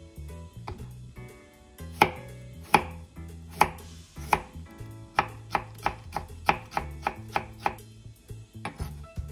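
Chef's knife cutting a cucumber on a wooden cutting board, each stroke a sharp knock of the blade on the board. A few spaced strokes come first, then a quicker run of about three a second as the thin slices are cut into fine strips.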